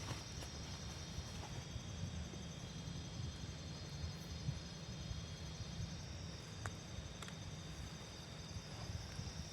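Insects trilling steadily in high, even tones, one of them a fast pulsing trill, over a constant low rumble, with a few faint clicks.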